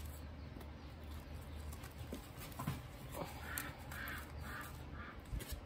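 Quiet handling of paper banknotes being slid into a clear plastic binder pocket, with a few faint clicks. Partway through come four short faint higher-pitched sounds, about half a second apart.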